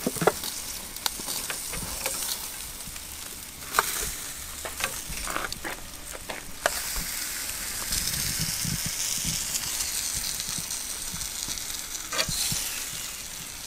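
Pork belly and ribs sizzling on a hot grill grate, the sizzle growing louder past the middle. Sharp clicks now and then as metal tongs knock against the grate and the steel tray while pieces are lifted off.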